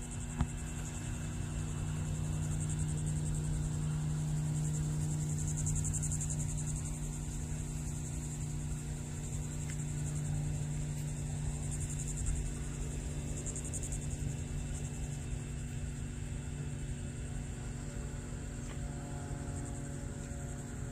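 Cessna 182R's six-cylinder piston engine and propeller droning steadily high overhead, a little louder a few seconds in and then slowly fading. Crickets chirp throughout in a high pulsing trill.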